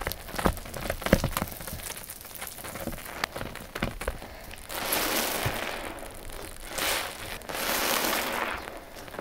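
Wet sponges squeezed by hand: a run of crackling, squelching clicks, then from about halfway three longer wet squishing swells.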